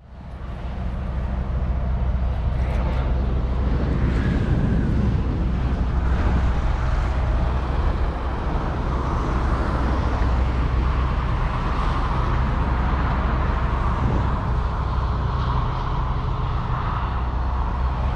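A steady low engine drone mixed with outdoor road traffic noise, fading in at the start.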